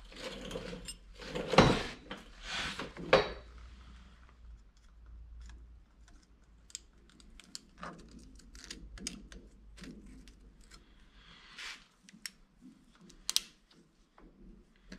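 Snap ring pliers and a steel snap ring clicking and scraping as the ring is worked onto the splined shaft of a truck axle's spider-gear differential. A few louder metal clatters come in the first three seconds, then a run of light, irregular clicks, with one sharp click near the end.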